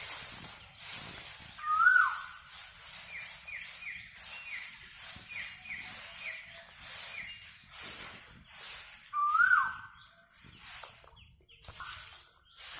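Birds calling outdoors: a loud call that rises then drops, heard twice (about 2 s in and again about 9.5 s in), with a run of short, quick falling notes between. A high hiss pulses two or three times a second throughout.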